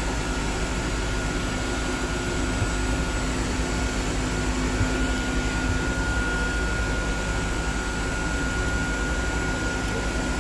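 Steady rushing hum of running plant-room machinery, with a thin, steady high whine above it.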